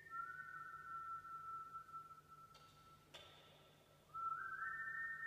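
A person whistling high, pure sustained notes in a stone cistern. Each note hangs in the long echo and fades slowly, so notes that follow one another overlap into a chord. Two sharp knocks about half a second apart come midway, and about four seconds in a new run of notes steps upward.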